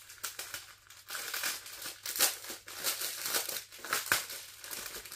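Plastic packaging crinkling in irregular crackles as small bags of diamond-painting drills are handled, busier from about a second in.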